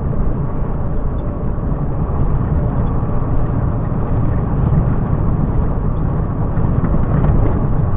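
Volvo FM 370 truck running at highway speed, heard from inside the cab: a steady low drone of engine and road noise.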